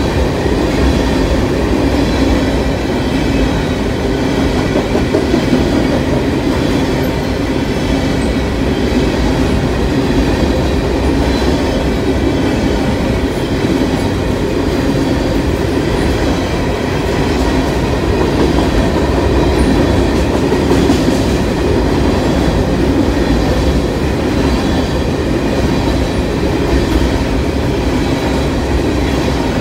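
Covered hopper cars of a grain freight train rolling past close by: the steady, loud running of steel wheels on the rails, with no break as car after car goes by.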